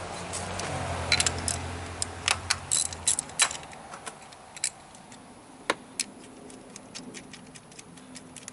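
Socket ratchet clicking in short irregular runs as the 10mm bolt holding an ignition coil is worked loose, the clicks thinning out after about three and a half seconds. A low hum sits under the first three seconds.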